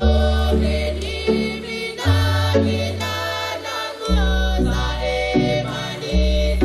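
Music: deep held bass notes that change about every two seconds, under layered choir-like singing.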